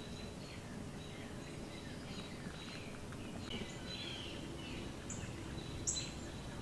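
Faint outdoor ambience with small birds chirping: a scatter of short calls in the middle and latter part, over a steady low background and a thin high steady tone.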